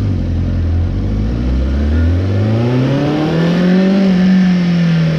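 Motorcycle engine accelerating as the bike pulls away, its pitch rising steadily for about three seconds, then levelling off and easing slightly. The exhaust leak has been freshly spot-welded shut.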